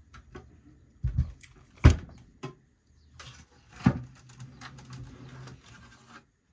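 A UPS's sealed lead-acid battery pack, a pair of 12 V batteries, being set down on a workbench, with the plastic casing being handled. A dull thud about a second in, a sharp knock near two seconds, another knock around four seconds, and scraping and rustling in between.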